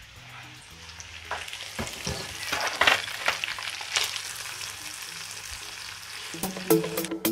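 Chicken pieces frying in a pan, with a utensil clicking and scraping against the pan as they are turned and lifted out. Background music with a beat comes in near the end.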